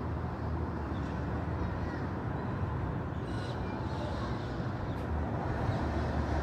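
Steady city street ambience: a low hum of traffic that grows slightly louder near the end as a car approaches.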